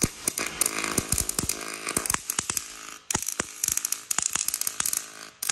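MIG welding arc from a Miller Axcess Auto 300 power source and Axcess 40V wire feeder, crackling and sizzling with frequent sharp pops. The arc breaks off briefly about three seconds in, then strikes again.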